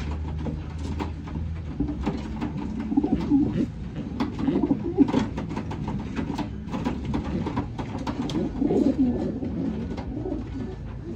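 Racing pigeons cooing, low warbling coos overlapping, with frequent short taps and rustles among them.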